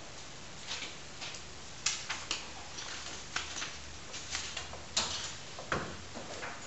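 Irregular light clicks, taps and short scratches of students working at classroom desks with pens, paper and books.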